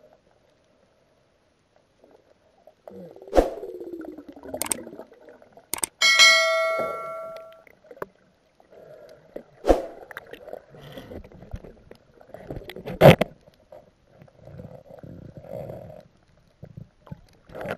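Scattered muffled knocks and water noise heard through an underwater camera housing. About six seconds in, a bell-like ding rings out and fades over a second or so: the notification-bell sound effect of a subscribe-button animation.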